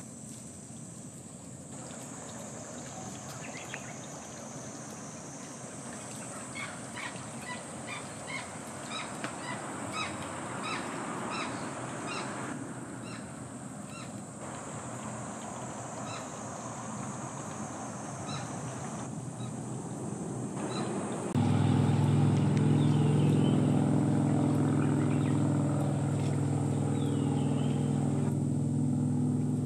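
Outdoor ambience with a steady high hiss and many short, repeated bird chirps. About two-thirds of the way through, a loud, steady, low engine hum starts abruptly and runs on, with a few faint chirps over it.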